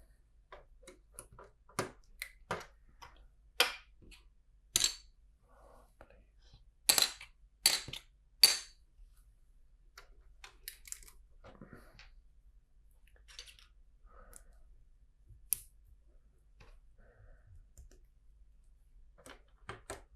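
Loose plastic LEGO bricks clicking and clacking as they are handled and sifted through, with a cluster of sharper clacks about four to nine seconds in.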